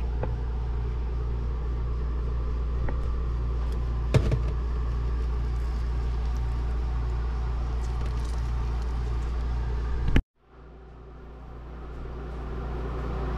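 Steady low mechanical hum with a few light knocks as raw fish is handled in a stainless steel sink, the loudest about four seconds in. The hum cuts out abruptly about ten seconds in and then fades back up.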